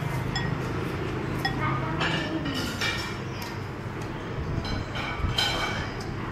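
Metal spoon and chopsticks clinking against a ceramic soup bowl while eating noodle soup, several short sharp clinks scattered through.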